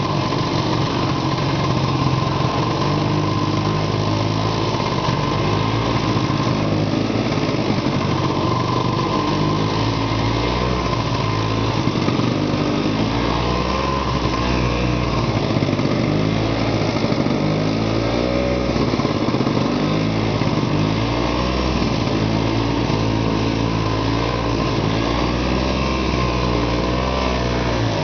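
Arctic Cat Panther snowmobile engine running under way, heard from the seat, its pitch rising and falling repeatedly as the throttle changes over the second half.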